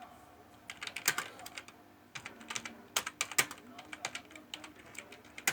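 Laptop keyboard being typed on: quick, uneven runs of key clicks with short pauses between them.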